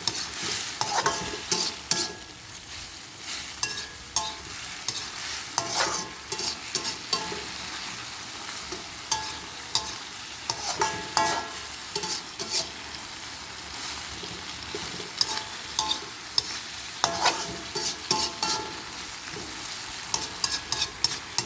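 Water spinach and petai stir-frying in a pan: steady sizzling, with a metal spatula repeatedly clicking and scraping against the pan as the vegetables are stirred.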